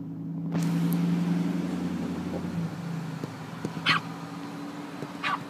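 Small dog yapping twice, short and sharp, about a second and a half apart, over a steady low hum.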